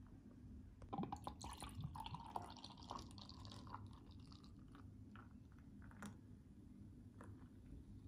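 Beer poured from a glass bottle into a stemmed glass, the liquid splashing and foaming, busiest in the first few seconds; a light click about six seconds in.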